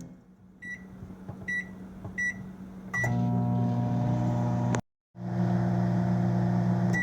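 Microwave oven keypad beeping four times as it is set, then the oven starting and running with a steady hum. The sound drops out completely for a moment about five seconds in, then the hum resumes.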